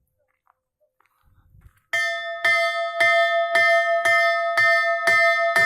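Temple bell rung by hand, starting about two seconds in and struck about twice a second in an even rhythm, each stroke's ringing carrying over into the next.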